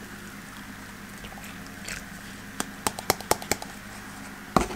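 Light, sharp clicks and taps of plastic containers being handled, a quick cluster of about eight about halfway through and a single knock near the end, over the steady low hum of a workshop fan.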